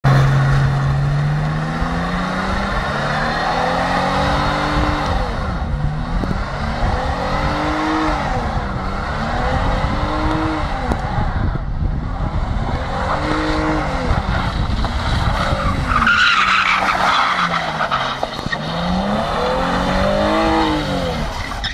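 Car engine revving hard in repeated rise-and-fall cycles, about every two seconds, as the car spins donuts with its rear tyres screeching and spinning on concrete. The screech gets sharper and louder about three quarters of the way through.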